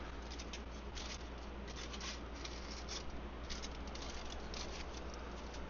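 Seasoning being shaken from a plastic shaker jar onto fish: faint, irregular light rattling and pattering of the grains.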